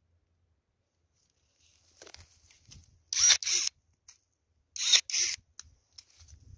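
Cordless electric pruning shears making two cuts on pear shoots, about a second and a half apart. Each cut is a quick double whir of the motor, and faint rustling of branches comes before the first.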